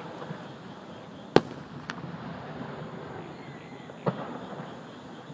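Aerial firework shells bursting: a sharp bang about a second and a half in, a smaller one just after, and another about four seconds in, over a steady chorus of insects and frogs.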